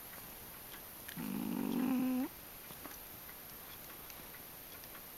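A pet snoring in its sleep: one drawn-out, pitched snore starting about a second in, rising in pitch as it ends.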